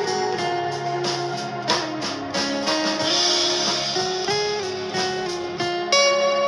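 Background music: a guitar-led instrumental melody.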